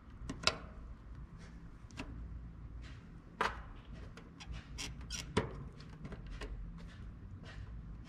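Needle-nose pliers gripping and working a wire's spade connector off a terminal of an air conditioner's dual run capacitor: scattered small clicks, the sharpest about three and a half seconds in.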